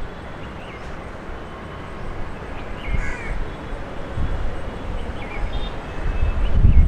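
A few short bird calls outdoors, over a low rumble that swells about four seconds in and again near the end.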